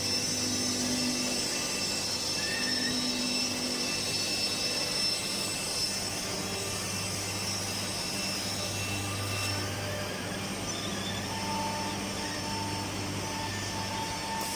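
Woodworking machinery on a wooden-door production line, including a double end tenoner, running steadily: a constant low hum under a high whine, with a fainter higher tone joining about eleven seconds in.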